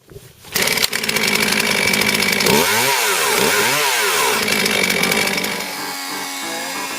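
Chainsaw engine running loudly, its pitch rising and falling twice around the middle as the throttle is blipped.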